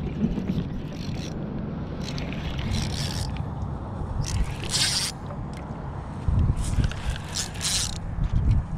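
Penn spinning reel being cranked and handled in short spells, giving scraping, rustling bursts over a steady low rumble of wind on the microphone.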